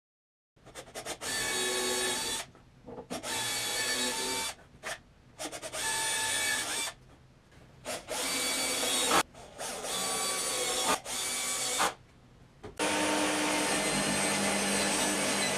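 Power tools running in a string of short clips of one to two seconds, each with a steady motor whine and each cut off abruptly; a longer unbroken stretch of tool noise starts near the end.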